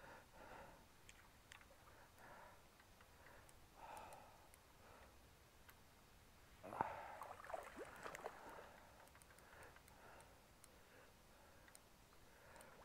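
Near silence: faint outdoor background with a few soft, short sounds, the clearest a brief cluster about seven seconds in.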